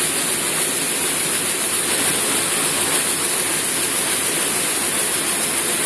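Seed processing plant machinery running: cleaners and bucket elevators making a steady, even noise with a strong hiss.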